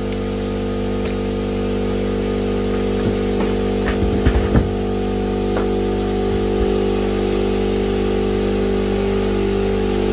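Air compressor running steadily as it pumps up its tank, with a few light clicks about four seconds in.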